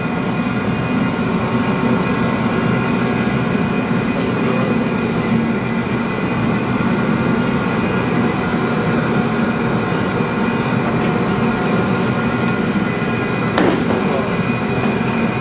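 Corded heat gun running steadily, its fan blowing hot air at a car's rear bumper. A single sharp click sounds near the end.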